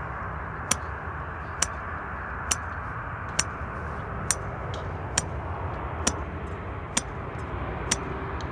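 Golf club striking teed golf balls in rapid fire, nine sharp cracks evenly spaced a little under a second apart, over a steady outdoor background hiss.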